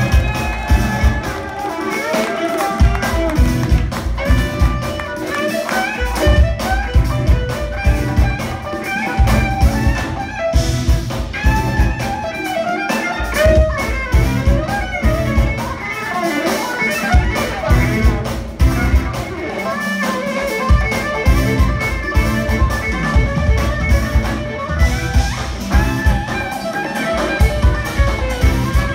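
Jazz-fusion band playing live: drum kit and bass with electric guitars and keyboards, and a lead melody line bending in pitch over the top. The bass and drums drop out briefly several times.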